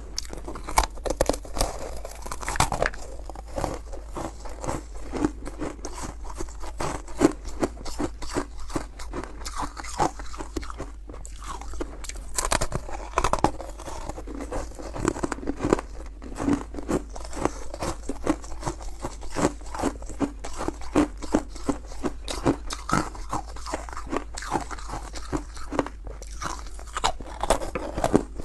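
Freezer frost being bitten and chewed, a continuous run of crisp, crackling crunches.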